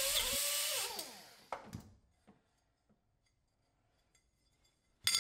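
Air die grinder with a 60-grit sanding disc running with a steady hiss, then spinning down over about a second, its pitch falling, as the trigger is released. A few faint clicks follow, and a sharp clack comes near the end.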